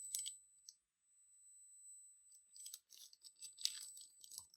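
Faint handling of packaging and small plastic accessories: a couple of clicks at the start, then a stretch of crackly rustling from about two and a half seconds in.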